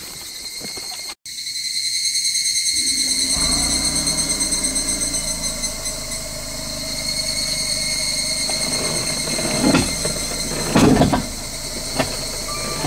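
Insects droning steadily with high-pitched tones in forest. Footsteps on a dirt track come at the start. From about three seconds in, a vehicle engine runs low underneath, with two louder bumps near the end.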